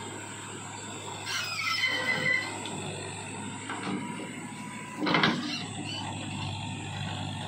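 Tractor-mounted backhoe working, with the tractor engine running steadily. A squeal comes from the boom about one to two seconds in. A loud scraping thud follows about five seconds in as the bucket digs into the soil.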